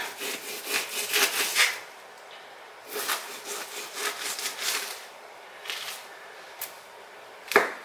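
Knife sawing through raw chicken in a few bursts of back-and-forth strokes, followed by a few sharp knocks near the end.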